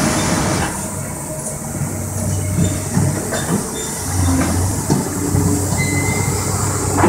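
Cat excavator's diesel engine running under load, a steady low drone that swells again about four seconds in, with a few short knocks and clanks from the machine working.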